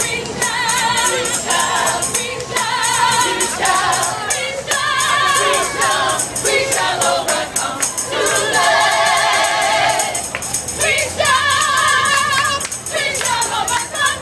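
A group of voices singing together in chorus, with a steady rhythmic percussion beat underneath.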